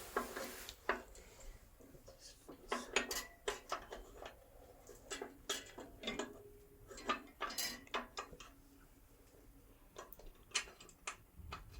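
Irregular metallic clinks, taps and knocks, a few ringing briefly, as the bandsaw's metal blade guard and its fixings are handled and fitted back into place.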